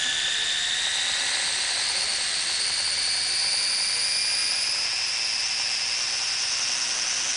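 Whine of a 1:8 RC car's brushless three-phase electric motor and drivetrain driving the rear wheels against a heavy steel dyno roller, the pitch climbing slowly and steadily as the roller is spun up.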